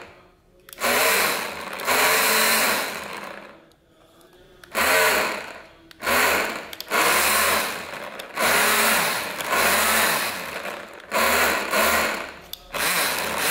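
Handheld cordless drill run in repeated trigger bursts of one to two seconds, its motor speeding up and winding down with each burst.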